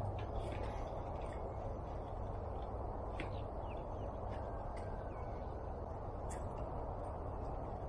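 Birds calling, with a few short calls and chirps scattered through, over a steady low outdoor rumble.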